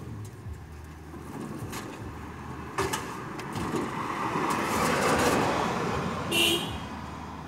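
A passing motor vehicle swells to its loudest midway and fades. A sharp knock comes about three seconds in and a short clank near the end.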